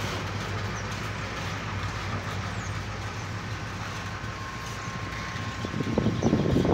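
Freight train of loaded tank cars rolling past, a steady low rumble of wheels on rails, growing louder with rougher clatter near the end.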